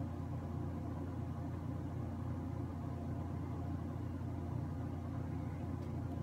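Steady low background hum.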